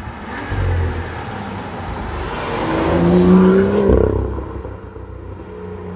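BMW N55 turbocharged straight-six car accelerating hard, its engine and exhaust note rising in pitch and growing loud. The note peaks about three seconds in, then drops abruptly just before four seconds in to a quieter, steadier note.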